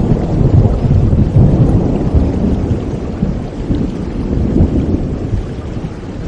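A long low rumble of thunder, loud at first and slowly dying away, over the steady hiss of rain.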